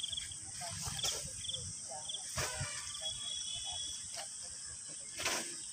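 Crickets chirping in short repeated trills over a steady high insect drone, with low murmured voices. A soft knock comes near the end.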